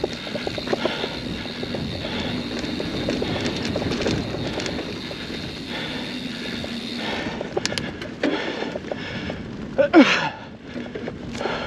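Mountain bike being ridden on a dirt trail: steady tyre and drivetrain noise, turning to sharp clattering knocks from about seven seconds in, with a brief gliding squeal about ten seconds in.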